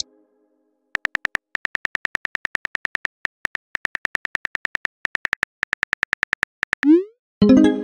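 Texting-app keyboard typing sound effect: rapid keystroke clicks, about seven a second, for several seconds. Then a short rising whoosh as the message is sent, and a chime near the end.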